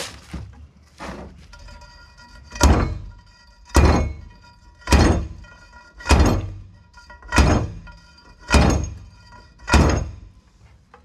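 Heavy steel pipe used as a slide hammer striking down on a Jeep Wrangler axle bearing retaining ring, driving it onto the axle shaft cold without heating it. Seven hard metallic blows about a second apart, each ringing briefly, after a few lighter knocks.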